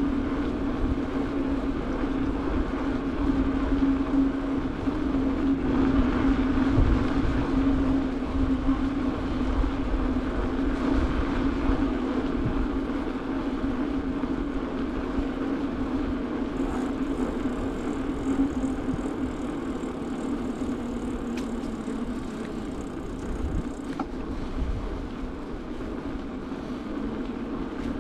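Bicycle rolling along a city street: a steady hum from the tyres on asphalt, easing slightly lower about two-thirds of the way through as the bike slows, with wind rumbling over the microphone.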